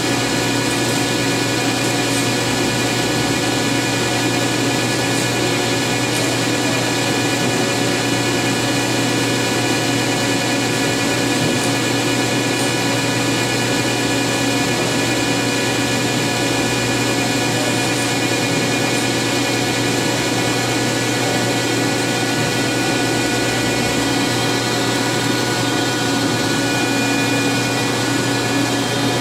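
Okuma LB15 two-axis CNC lathe running under power, a steady machine hum and whir with several steady tones and no knocks or changes. It sounds smooth, the sign of a well-kept machine.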